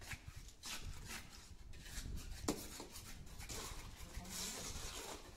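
Repeated scraping and knocking of hand tools working fresh concrete mix into steel cube moulds, with a sharper knock about two and a half seconds in.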